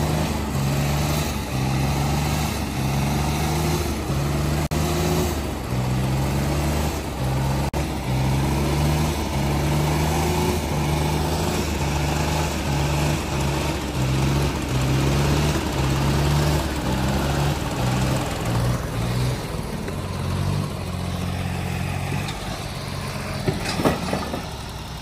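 Diesel engines of a John Deere and a Sonalika tractor running hard under load as they pull against each other in a tug-of-war, the low engine note jumping between two pitches about every half second, then steadier. Two sharp knocks near the end.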